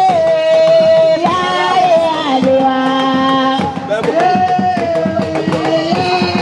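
Live dance music: drums beating steadily under a melody of long held notes that slide from one pitch to the next.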